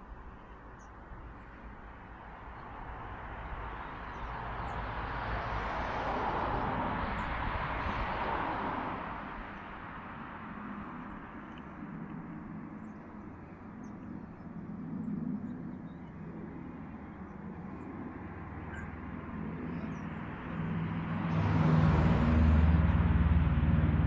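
Outdoor background noise from passing vehicles. One swells up and fades away about a third of the way in, and a louder one with a low engine hum comes in near the end. A few faint, short high chirps can be heard.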